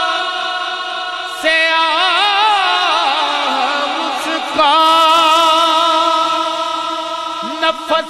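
A man singing a line of an Urdu hamd into a microphone, holding long notes with wavering melismatic ornaments. A new phrase comes in about a second and a half in, and another about four and a half seconds in.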